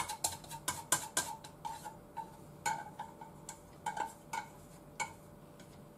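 Chopsticks tapping and scraping inside a tilted white saucepan as stuck-together noodles are worked out into a strainer: irregular sharp clicks with a short ring, quick at first, then sparser, stopping about five seconds in.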